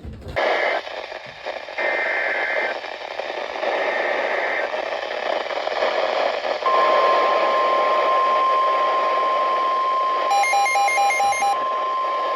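NOAA Weather Radio alert over radio static: three short data bursts of the SAME header, then the steady 1050 Hz warning alarm tone starts about seven seconds in and holds. A receiver's pulsing alarm beeps briefly about ten seconds in.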